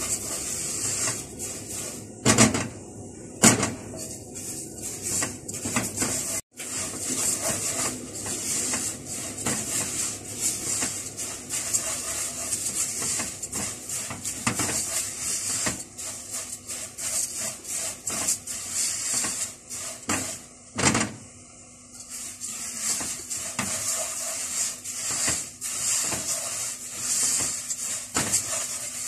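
Vermicelli toasting in butter and oil in a pot while being stirred with a silicone spatula: a steady sizzling hiss mixed with the scrape and rustle of the strands. A few sharp knocks break through it, two a few seconds in and a louder one about two-thirds of the way through.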